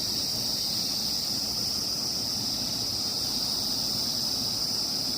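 Insects calling in a steady, unbroken high-pitched drone, over a low, even rushing noise.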